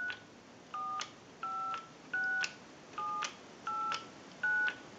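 Touch-tone keypad of a Northern Electric three-slot payphone dialing: a series of short two-note DTMF beeps, about one every three-quarters of a second, each ending in a click. The tone pairs step through the keys 4, 5, 6, 7, 8, 9 in order.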